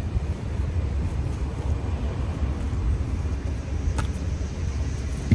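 Steady low outdoor background rumble, with a sharp click about four seconds in and a short thump near the end.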